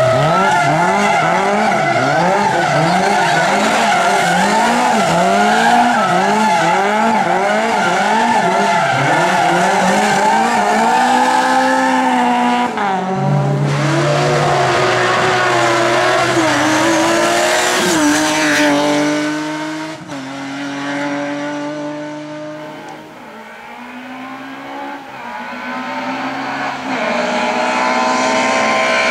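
Rally car engine under hard throttle, its pitch surging up and dropping back in quick repeated arches roughly every three-quarters of a second. After about twelve seconds the car steps up through the gears and fades away, and engine noise grows loud again near the end.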